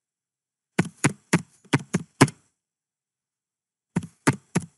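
Computer keyboard keys typed in a quick run of about seven sharp clicks, a pause of over a second, then another run of keystrokes starting near the end.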